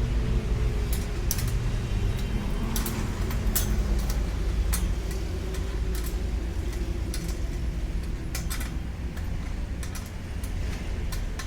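Hand tools and small metal fittings clicking and clinking at irregular intervals over a steady low hum.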